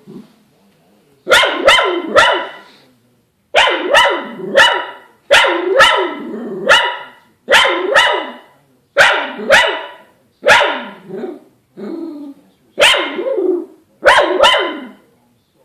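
Dog barking in play: about twenty sharp barks in quick clusters of two to four, with short pauses between the clusters.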